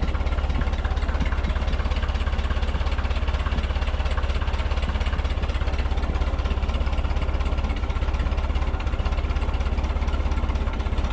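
A 1944 Ford 2N tractor's four-cylinder flathead engine runs steadily with an even, pulsing beat. It is warming up just after its carburetor rebuild and fresh fluids, with oil pressure coming up.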